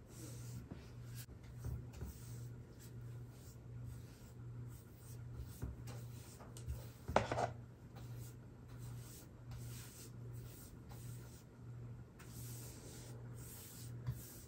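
An angled paintbrush brushing paint onto a wall in repeated soft swishing strokes, over a steady low hum, with one brief louder sound about halfway through.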